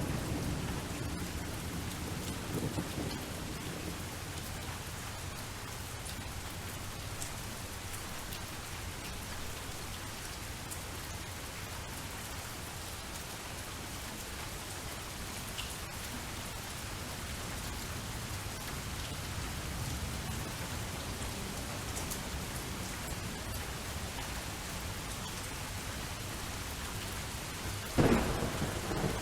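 Steady rain falling, with low thunder rumbling in the first few seconds and again midway. A louder, sharper thunderclap comes near the end.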